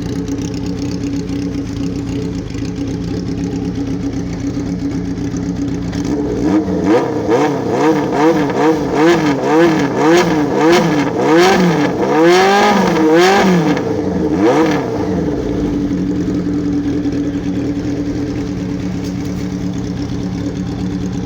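Honda CBX 750's inline-four engine idling steadily, then blipped through about a dozen quick throttle revs, roughly one a second, each rising and falling in pitch, before settling back to a steady idle about fifteen seconds in.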